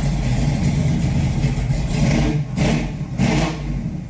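Car engine running, with the engine revved up twice in the second half.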